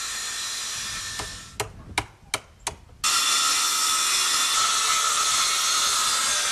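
Handheld Skil circular saw running and cutting through a wooden board, a steady high whine. In a quieter gap about a second in come four sharp knocks, then the cut starts again abruptly about three seconds in and runs steadily.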